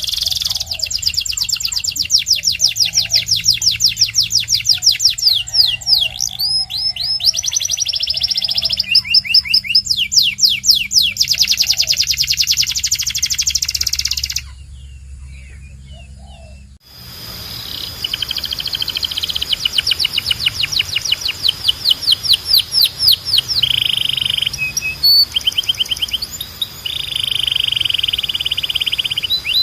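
Domestic canary singing long rolls of fast repeated notes and trills. The song breaks off for about two seconds past the middle, then starts again with a steady hiss behind it.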